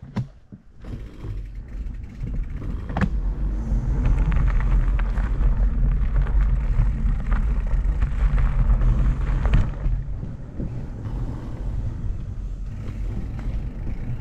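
Fat-tyre bike rolling along a dirt trail and wooden boardwalk, heard from a camera on the handlebars: a steady low rumble that builds over the first few seconds and eases a little after about ten seconds, with a few sharp knocks.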